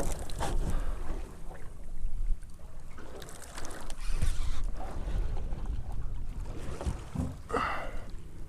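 Water slapping and sloshing against a small boat's hull, with wind on the microphone and scattered knocks, and a brief voice-like sound near the end.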